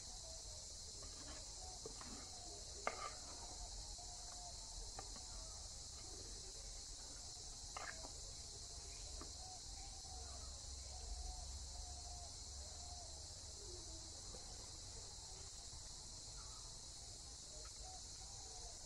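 Steady high-pitched chorus of insects, with faint chirping bird calls underneath. A couple of light knocks come about three seconds in and again near eight seconds.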